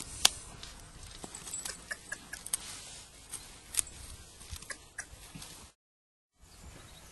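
Draft horse pulling a walking plough through soil: scattered clinks and knocks from the harness chains and plough, with one sharp click just after the start. The sound drops out completely for a moment near the end.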